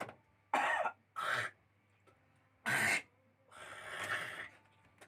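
A person undergoing gurah nasal cleansing coughs hard three times, then gives a longer, softer cough, bringing up phlegm loosened by the treatment.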